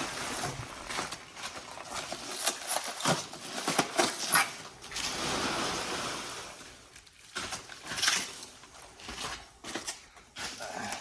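Plastic wrapping and packing peanuts rustling and crinkling as a wrapped exhaust pipe section is handled and unwrapped, with scattered light clicks and knocks.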